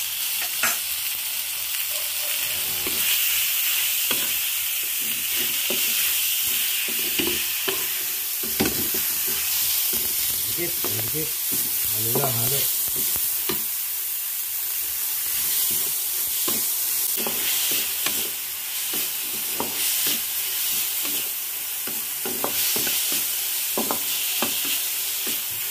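Sliced beef with garlic and onion sizzling in hot oil in a metal wok, stirred with a wooden spatula that scrapes and clicks against the pan over a steady hiss.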